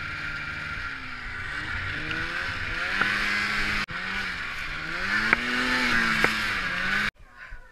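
Snowmobile engine revving up and down as it drives through deep snow, its pitch rising and falling over a steady rushing noise, with a few sharp ticks. The sound cuts off abruptly near the end.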